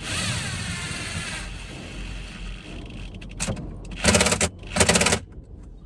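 A tool tightening an 8 mm screw into a metal dash bracket: a steady rasping at first, then two short bursts of rapid metallic clicking about four and five seconds in, the loudest sounds, as the screw is snugged up.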